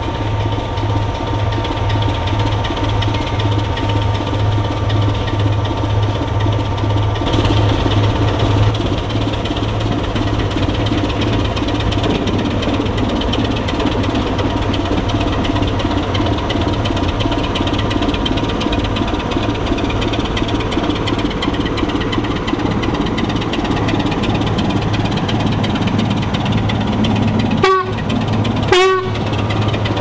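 British Rail Class 25 diesel locomotive's Sulzer six-cylinder engine running with a steady, pulsing low throb as the locomotive draws slowly past. Near the end come two short blasts on its horn, about a second apart.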